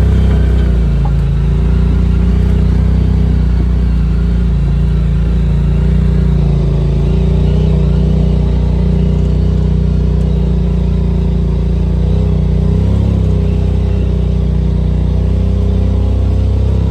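Side-by-side UTV engine running steadily under way, holding a fairly even pitch with only small changes in speed.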